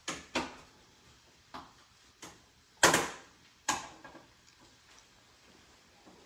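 Kitchenware knocking and clattering: six sharp knocks over about four seconds, the loudest about three seconds in with a short ring after it.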